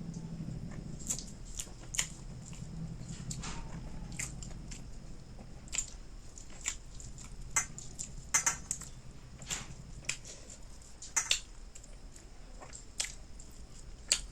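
Close-up eating sounds of a person chewing food, with irregular sharp wet mouth clicks and smacks.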